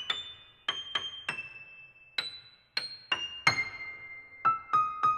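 Background music: a slow melody of single high piano notes, each struck and ringing away before the next.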